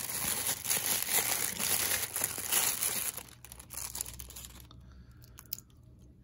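Clear plastic bag crinkling and rustling as hands unwrap a wristwatch from it, for about three seconds. The sound then drops off to a few faint clicks.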